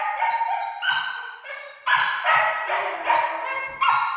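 Background music: a melody of separate notes, each starting sharply, holding a steady pitch and fading away, several a second.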